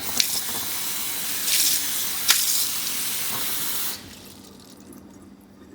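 Water running from a Moen kitchen faucet into the sink, shut off about four seconds in. The faucet, fitted with a new 1255 cartridge, is being run to flush out loose black particles.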